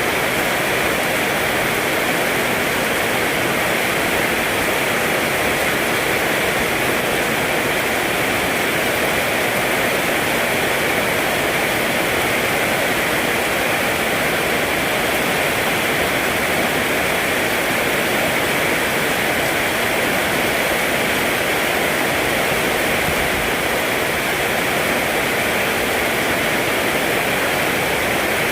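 Rain falling steadily, an even hiss with no breaks or distinct drops standing out.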